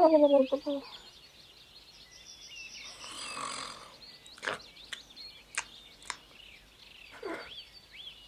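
An animated snowman's sleepy vocal sounds: a loud falling snore-like sigh at the start, a breathy inhale a few seconds in, and a shorter falling murmur near the end. Light birdsong chirps throughout, with a few short clicks in the middle.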